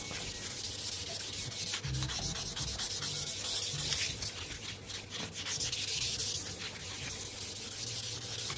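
Hand wet-sanding a black marble clock case with a small piece of 1200-grit wet-or-dry paper: a steady rubbing hiss of back-and-forth strokes on the stone.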